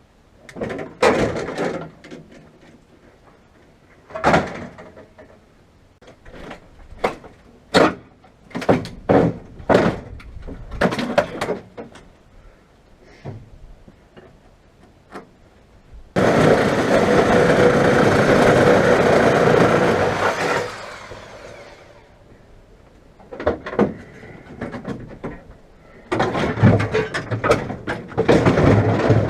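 Repeated metal knocks and bangs from a stripped car body shell being cut up. About halfway through, a reciprocating saw runs steadily through sheet metal for about four and a half seconds.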